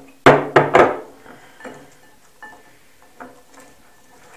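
Dried fruit tipped from a plate into a glass jar: three loud knocks in quick succession near the start, then a few lighter clicks and taps.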